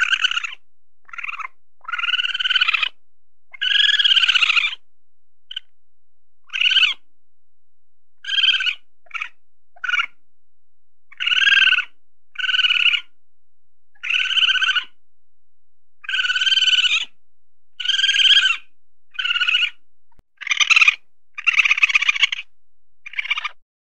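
A weasel calling over and over with short, high-pitched squeals, about eighteen in an irregular series, each lasting from a fraction of a second to about a second.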